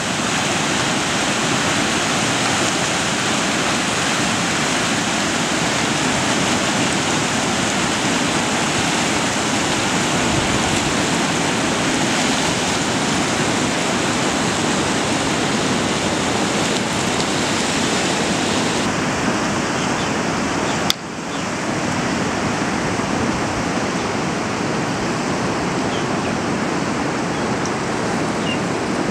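Steady rush of a swollen, muddy river in flood. About two-thirds of the way through there is a click and a brief drop, where the recording cuts to another take.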